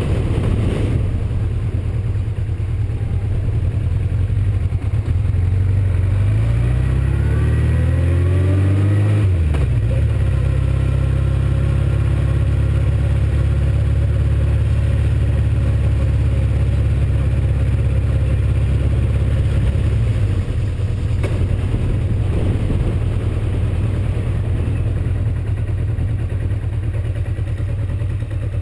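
Honda CB750's air-cooled inline-four engine pulling the motorcycle along at low speed: it rises in pitch under acceleration about seven seconds in, drops at a gearchange, then runs steadily and eases off over the last stretch as the bike slows.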